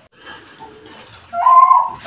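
Caged perkutut bangkok (zebra dove) cooing: after a short pause, one loud drawn-out note starts about one and a half seconds in, the opening of its song.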